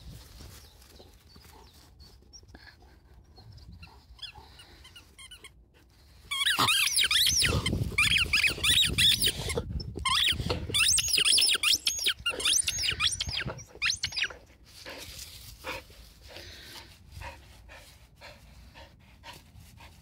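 Groenendael Belgian shepherd dog whining and yelping close by: a run of high, wavering cries starts about six seconds in and lasts some eight seconds. Quieter rustling and handling noise comes before and after.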